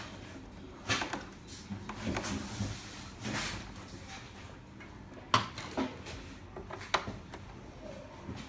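Plastic parts of a Melitta Passione coffee machine being handled and taken apart: scattered sharp clicks and knocks.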